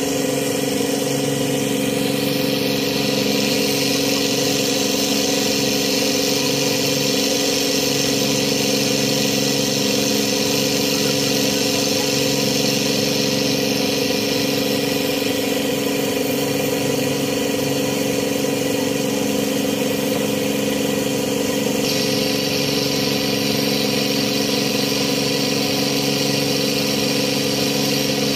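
Fishing trawler's inboard diesel engine running steadily under way: a continuous, even drone with a steady hiss over it.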